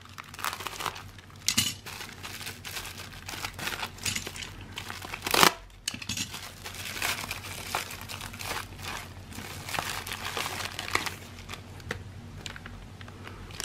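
Plastic packaging crinkling and rustling as a poly mailer is cut open with a utility knife and a small plastic bag is pulled out of it, with one louder rip about five and a half seconds in.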